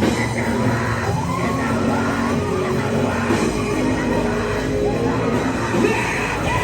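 Steady church keyboard music under a congregation praying aloud, with voices crying out in pitch-sliding wails, one near the start and one near the end.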